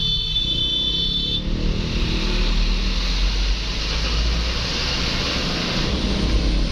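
Road traffic: vehicle engines running with a low rumble and steady road noise. A single steady high-pitched electronic beep sounds at the start and stops about a second and a half in.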